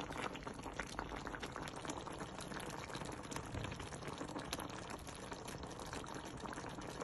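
Pot of potatoes and carrots bubbling at a boil, a steady crackle of small bubbles.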